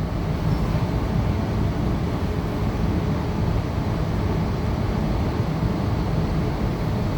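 Steady running noise heard inside a Tangara electric train carriage in motion: an even low rumble of wheels on rail with a hiss of track and air noise.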